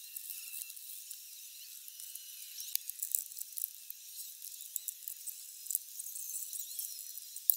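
Scattered clicks, scrapes and rustles of hand work on the car's floor carpet, which is being cut out and pulled up, heard thin and hissy.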